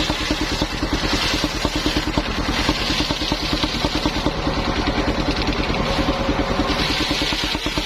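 Engine-driven circular sawmill running steadily, its engine giving a rapid even beat.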